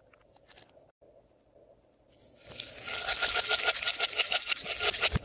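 Gold glitter shaken from a plastic container onto slime: a dense, rapid crackling rattle that starts about two and a half seconds in, after a nearly quiet start.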